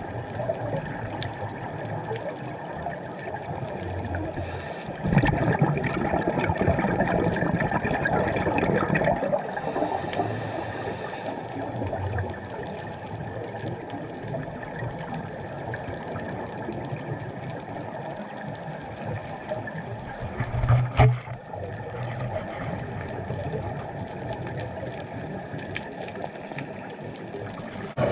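Scuba diver's exhaled regulator bubbles rumbling and gurgling, muffled through an underwater camera housing. A brief hiss comes between bubble bursts, and there is a single knock late on.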